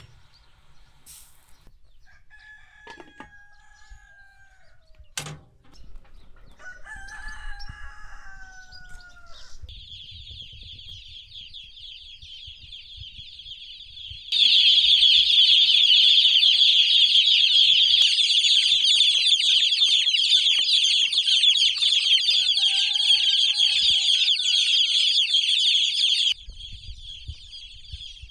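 A rooster crowing three times, each crow falling in pitch at the end, with a few knocks in the first seconds. A steady high-pitched hiss-like buzz comes in about ten seconds in, turns much louder a few seconds later, and cuts off suddenly near the end.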